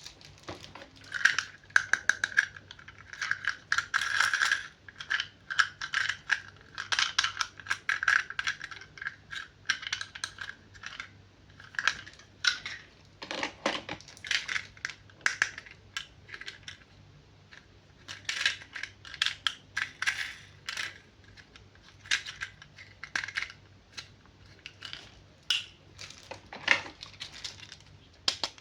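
Plastic toy packaging being handled and opened: a dense, irregular run of clicks, taps and crinkles, with a faint steady electrical hum underneath.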